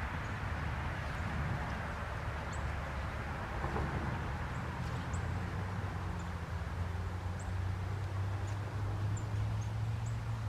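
A steady low hum runs throughout, with short high bird chirps scattered over it every second or so.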